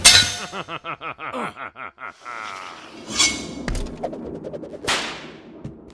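Foley sword fight: a sharp metal clang as a rapier strikes a sickle blade, followed by a fast pulsing metallic ringing for about two seconds. Another ringing metal strike comes about three seconds in, and a swish near the end.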